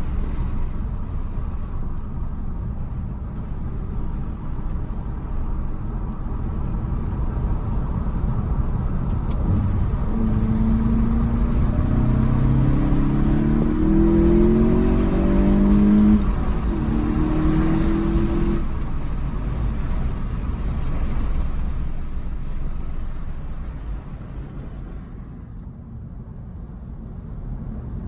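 VW GTI MK7.5's turbocharged EA888 four-cylinder, fitted with an aftermarket intake and turbo muffler delete, heard from inside the cabin over road rumble. About ten seconds in it pulls hard, its note climbing in several short steps between gear changes, then it eases off and settles back to a low drone.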